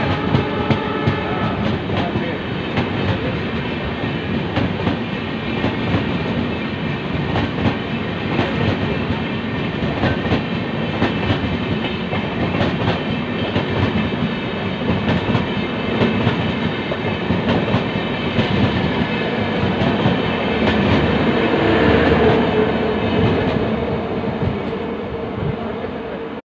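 Express passenger train of LHB coaches passing at speed: a steady rush of wheels on rail, with repeated clicks as wheels cross rail joints, a little louder near the end.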